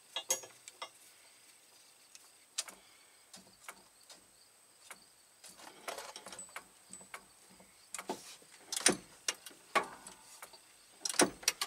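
Scattered light metallic clicks and taps from hand work on a truck's clutch linkage adjusting rod, with a few louder knocks about nine seconds in and near the end.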